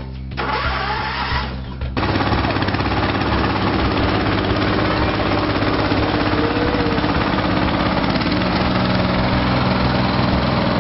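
Golden Sprint riding lawn mower's engine: a short burst of cranking, then about two seconds in the engine catches and runs loud and steady with a fast, even pulsing.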